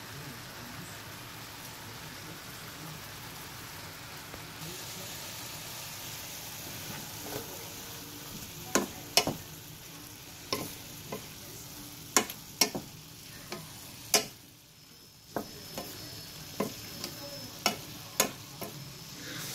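Chopped cabbage and zucchini sizzling steadily in a stainless steel skillet. In the second half a spoon stirs the vegetables, knocking sharply against the pan about a dozen times.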